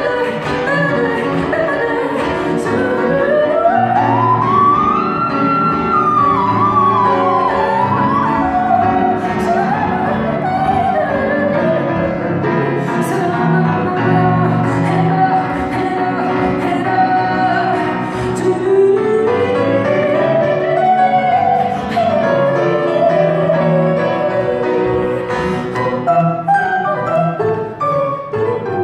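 Live voice-and-piano jazz duet: a woman singing over grand piano accompaniment, her voice twice sliding up in a long rising line to a high note and easing back down.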